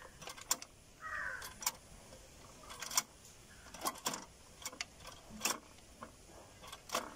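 Scattered sharp clicks, several in quick clusters, as the push button on an L&T EM101+ single-phase electricity meter is pressed to scroll through its display readings. A bird's short call sounds about a second in.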